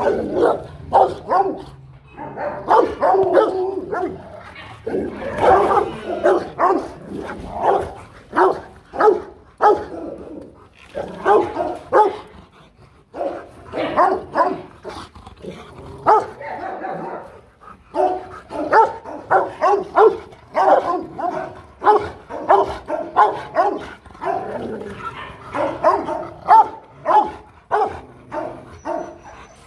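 Two Rottweilers barking at each other in threat, deep barks fired in rapid volleys with brief lulls between them.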